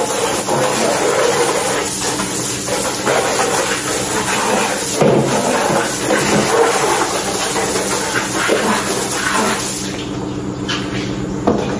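Water from a garden hose splashing over plastic stools and onto a concrete floor, a steady rush that thins out about ten seconds in.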